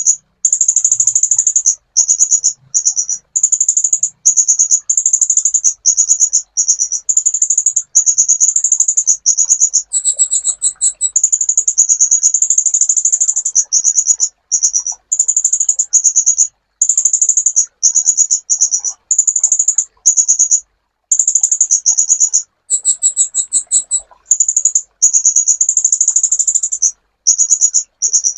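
A 'kolibri ninja' sunbird singing loudly in long, very high, rapid chattering trills separated by short pauses, with a higher, choppier phrase about ten seconds in and again near the end. It is a masteran, a song recording played to caged birds to teach them this song.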